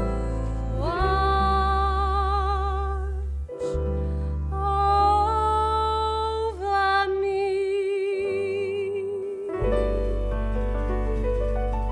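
A woman singing jazz over an instrumental accompaniment, her notes held with vibrato. Her voice ends on a long held note about nine and a half seconds in, and the accompaniment then plays a closing chord with a rising run of notes.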